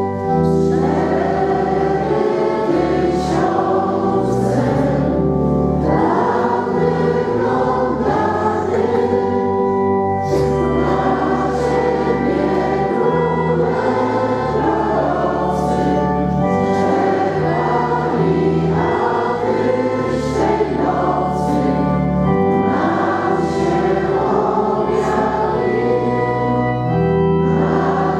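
Church congregation and priests singing a hymn together in long held notes, over a steady sustained pipe-organ-like accompaniment.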